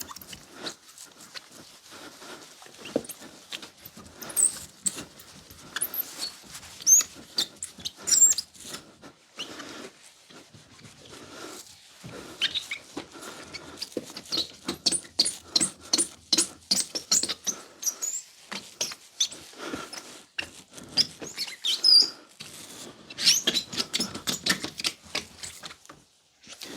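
Rubbing polish by hand into a plastic headlight lens: quick back-and-forth scrubbing strokes with short high squeaks, with brief pauses between bouts.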